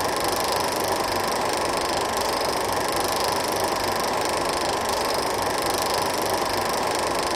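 A 16mm film projector running, a steady mechanical whirr.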